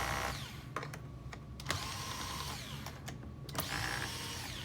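Cordless drill/driver backing out screws: three short runs, each spinning up and winding down, with small clicks between them.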